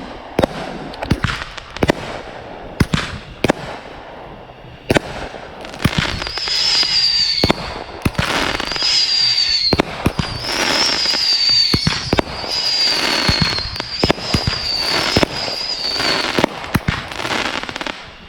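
Consumer fireworks going off in a rapid string of sharp bangs. From about six seconds in, a run of high whistles comes one after another, each falling slightly in pitch, over a crackling hiss.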